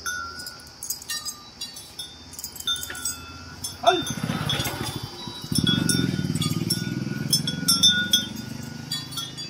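Small bell and iron chains on a walking temple elephant ringing and clinking lightly. A louder, rough, low sound comes in about four seconds in with a short falling glide and runs until near the end.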